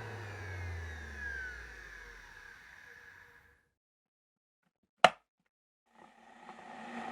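An electric motor spinning down after being switched off, its whine falling steadily in pitch and fading out. Then a single sharp click, and near the end a new steady machine hum fades in.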